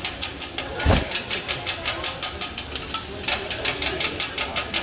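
Metal spatula rapidly chopping and tapping on a steel teppanyaki griddle, about eight sharp clacks a second, as egg is cut into fried rice. The clacking eases off for a couple of seconds and comes back strongly near the end. There is a single low thump about a second in.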